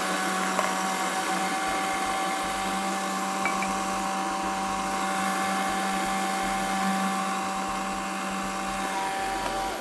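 Electric chopper (a hand-blender motor on a chopper bowl) running steadily, puréeing roasted red peppers for soup.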